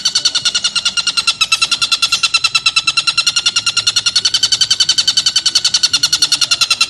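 Oriental dollarbird (tengkek buto) calling in a fast, even run of short repeated notes, about eight a second, as one continuous chatter.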